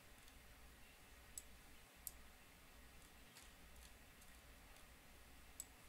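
A few sharp computer mouse clicks, spaced seconds apart, over a near-silent room with a faint low hum.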